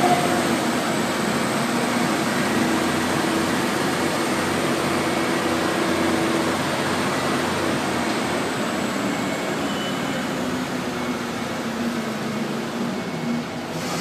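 Diesel engine of a truck-mounted crane running steadily, with a faint high whine in the background; slightly quieter toward the end.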